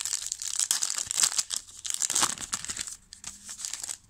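Foil wrapper of a trading-card pack being torn open and crinkled by hand: a dense crackle for about the first three seconds, then a few lighter rustles.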